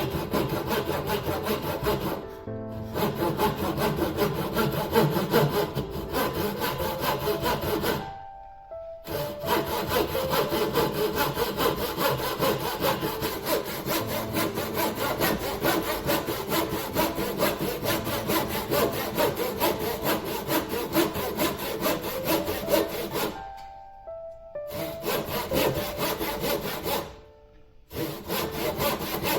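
Hand saw cutting wood in quick back-and-forth strokes for a dovetail joint, stopping briefly about eight seconds in and twice near the end.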